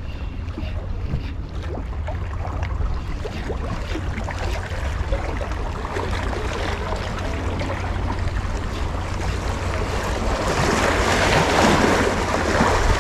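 Wind buffeting the microphone with a steady low rumble, over small waves washing against shoreline rocks. The wash swells louder about ten seconds in.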